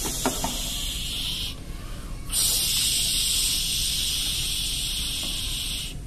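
Toy kitchen faucet giving a hissing running-water sound, cutting out for under a second about a second and a half in, then running again until it stops abruptly at the end.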